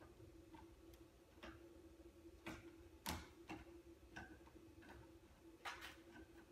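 Irregular light clicks and taps of a screwdriver and screws working on the iMac G3's internal parts, about eight in all, over a faint steady hum.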